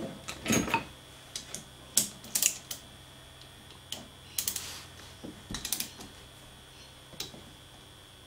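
Metal spanner clicking and clinking on a nut in short irregular bursts as the nut is tightened on a threaded puller. The puller is drawing a taper roller bearing's outer race into a mini-lathe's headstock spindle housing.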